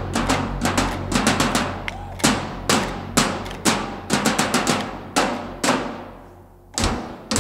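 Drum-heavy background music with a steady beat of about two hits a second. It thins out to a lull near the end, then one more hit.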